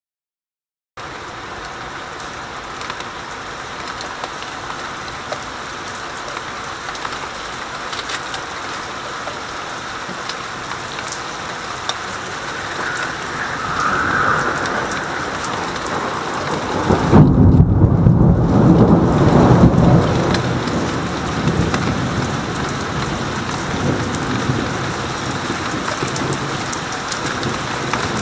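Steady rain falling during a thunderstorm. About two-thirds of the way through, a loud clap of thunder rumbles for a few seconds, then fades back under the rain.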